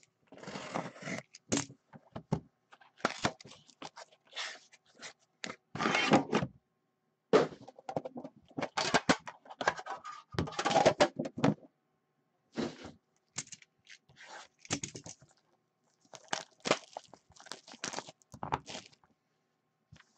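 Upper Deck The Cup hockey card box being handled and opened by hand: irregular cardboard scraping, rustling and light knocks as the sleeve and inner box are slid and lifted apart, with short pauses between.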